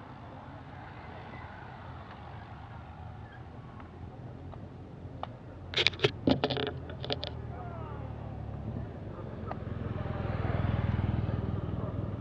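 Motorcycle engine approaching, its low hum growing louder over the last few seconds. About six seconds in there is a quick cluster of sharp knocks.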